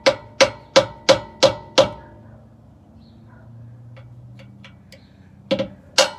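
A pick held against a Jeep's steel frame, struck with a mallet to punch a centre mark for drilling: six sharp metallic taps about three a second, each with a short ring, then a pause and two more taps near the end.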